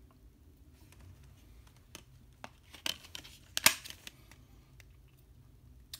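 Hands handling an open metal steelbook Blu-ray case with the disc in its plastic tray: a few small clicks and scrapes, the sharpest about three and a half seconds in.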